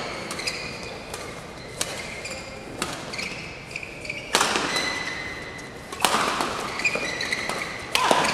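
Badminton rally: sharp racket-on-shuttlecock hits about once a second, with shoe squeaks on the court floor. A few louder bursts of noise that fade over a second or so.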